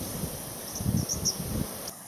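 Steady high buzzing of insects in the bush, with a few faint short high chirps around the middle. Irregular low gusts of wind buffet the microphone. The whole ambience drops away suddenly near the end.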